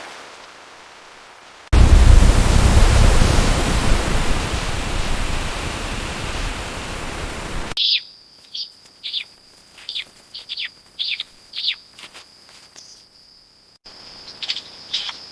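A loud, even rushing noise starts suddenly, fades slowly and cuts off after about six seconds. Then a bird calls in short chirps that fall in pitch, about one or two a second, over a steady high whine.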